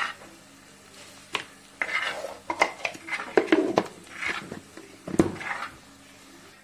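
Metal spoon scraping and clicking against an earthenware clay pot while mixing chopped shallots and spices, in short irregular strokes, with a dull knock about five seconds in.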